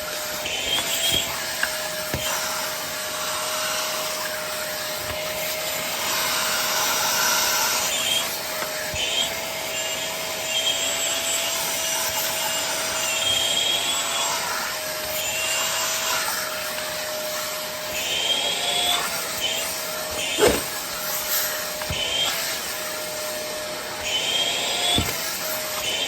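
Vacuum cleaner running steadily with a constant motor whine that wavers slightly in pitch, its attachment being worked over the stroller's fabric with rubbing and scraping sounds. A single sharp knock comes about twenty seconds in.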